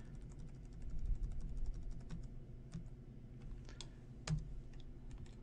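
Computer keyboard and mouse clicks while working the software: a quick run of small clicks in the first two seconds, then scattered single clicks, one louder a little past the middle.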